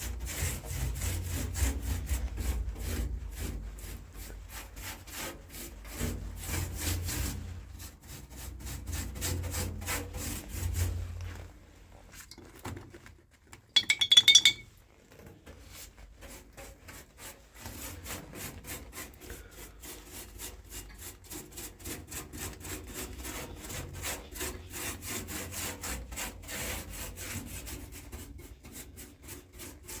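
Rapid back-and-forth scraping and rubbing strokes on a car's steel floor pan, working off old bitumen sound-deadening softened with white spirit. The strokes are heavier at first, pause briefly, and a short, sharp metallic clink rings out about halfway through before lighter, steady strokes resume.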